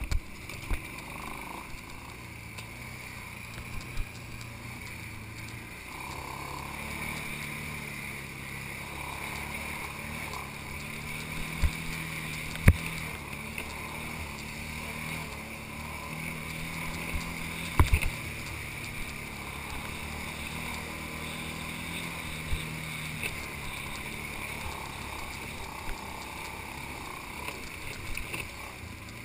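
ATV engine running steadily as the quad travels a bumpy dirt trail, its low drone rising and easing a little with the throttle. Occasional sharp knocks cut through it, the loudest about 12 and 18 seconds in.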